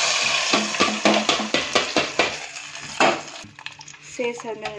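Hot oil tempering of mustard seeds, garlic and dried red chillies tipped from a metal pan into a pot of rasam, sizzling most strongly in the first second. Then a run of metallic clinks and knocks as the pan is tapped against the pot and a spoon stirs the rasam, with one louder knock about three seconds in.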